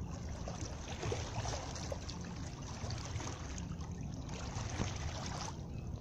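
Small waves lapping and trickling against the rocks at the water's edge, a continuous soft splashing with faint ticks, over a steady low rumble.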